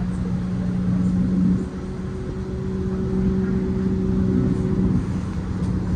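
Bus running along the road, heard from inside the cabin: a steady drivetrain hum over a low rumble. A higher tone joins in about a second and a half in and drops out near the end.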